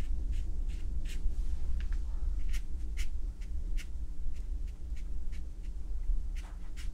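Watercolour brush dabbing and flicking short strokes onto textured watercolour paper to add grass texture, a series of brief, irregular scratchy strokes, over a low steady hum.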